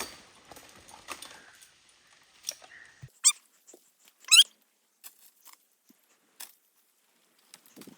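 Two short, high-pitched animal calls about a second apart, among scattered light clicks and rustling.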